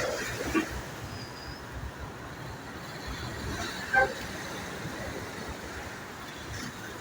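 Steady road traffic noise, with a short horn toot about four seconds in.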